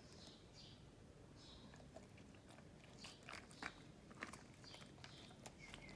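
A dog crunching ice, faint at first, then a run of sharp crunches in the second half.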